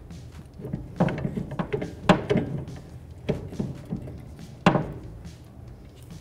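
Irregular knocks and clunks as a new rear strut-and-spring assembly is worked in through the rear suspension link and bracket of a Honda Accord, bumping against the suspension parts. There are about five knocks, the loudest about two seconds in and another sharp one a little before five seconds in.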